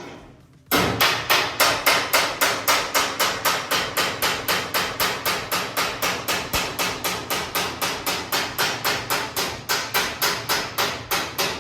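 Hammer beating a Mk2 Escort's steel back panel into shape: quick, even blows at about four a second that start about a second in and keep going, each with a short metallic ring. He is working the panel where it does not yet fit.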